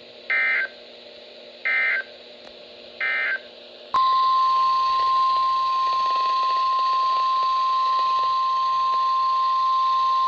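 Three short bursts of SAME digital data tones, about a second apart, from an emergency alert broadcast. About four seconds in, a loud, steady single-pitch alert tone starts: the 1050 Hz NOAA Weather Radio warning alarm that comes before a warning is read.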